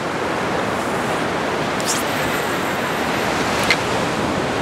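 Ocean surf breaking steadily on the beach, with wind on the microphone. A short swish about two seconds in comes as the long surf rod is swung through the cast. A sharp click follows a little before four seconds in.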